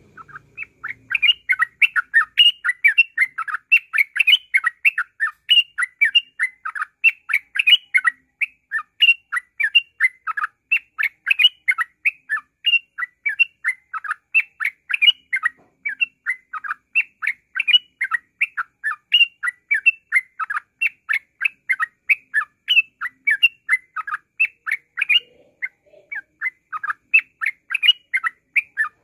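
Yellow-vented bulbul (trucukan) singing a rapid, unbroken chattering song of short whistled notes, about four a second. This continuous run of song is the 'ngropel' style that bird keepers play to provoke other birds into singing.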